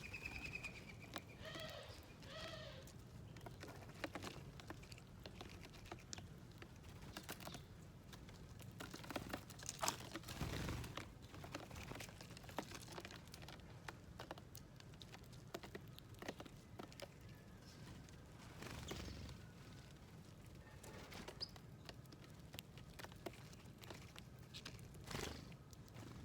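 Wild birds pecking seed from a feeder plate: faint, irregular tapping and ticking of beaks on the dish, with a short burst of chirping in the first few seconds.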